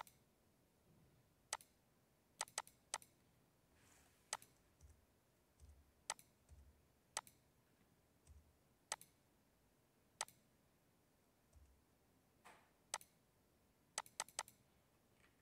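Faint computer mouse clicks, single sharp clicks spaced about a second apart with a few quick runs of two or three, as pipe points are placed in a drawing program.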